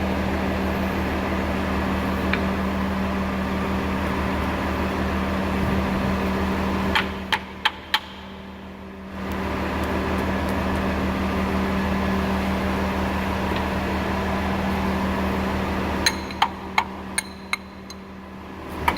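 Hammer striking a brass punch to drive out a hydraulic cylinder pin: two runs of four or five sharp taps, one about 7 s in and one about 16 s in. A steady mechanical hum with a low tone runs under the taps and drops away briefly after each run.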